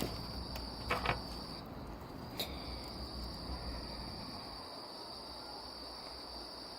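A few sharp plastic clicks and handling noises as a cap is loaded into a cheap toy cap gun, about a second in and again shortly after. Under them runs a steady high-pitched trill.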